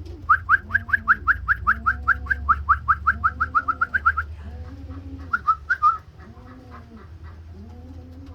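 Pigeons cooing in a loft, low rolling coos about once a second, over a loud fast run of short high chirps that speeds up for about four seconds, then a few more chirps about five seconds in. A low steady hum runs underneath.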